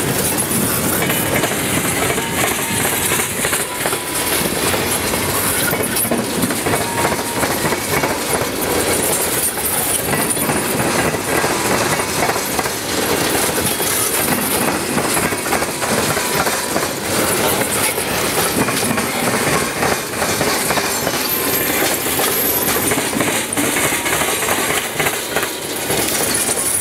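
Freight train cars rolling over a railway diamond crossing: the steel wheels pound the crossing frogs in a steady, rapid clatter of knocks over continuous rail noise.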